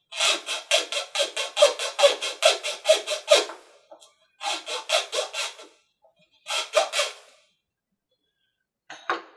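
Hobby knife sawing back and forth through a thin laser-cut wooden part, trimming down its tabs. The strokes come about four a second in one long run, then in three shorter groups.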